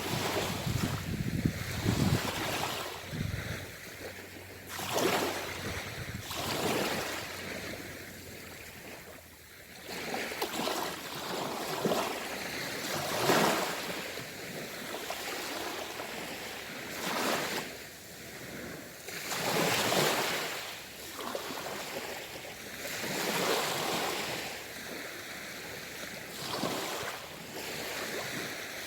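Sea waves washing in and breaking on the shore one after another, each surge a hiss of surf that swells and fades every few seconds.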